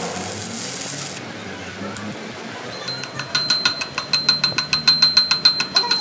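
Arc-welding crackle and hiss that cuts off about a second in. From about three seconds in, rapid, even hammer strikes follow on the fresh weld built up in a truck rear-axle flange, with the steel ringing under the blows.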